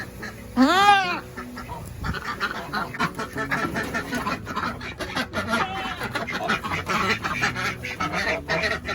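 Farm ducks quacking: one loud call about a second in, then a flock's rapid, continuous quacking and chatter.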